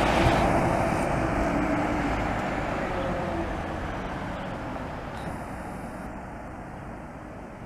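New Flyer D40LF diesel transit bus driving away, its engine and road noise fading steadily.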